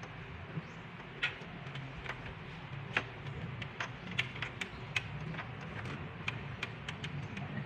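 Irregular light clicks and taps from small plastic connectors and cables being handled and pushed onto pins inside a desktop computer case, over a steady low hum.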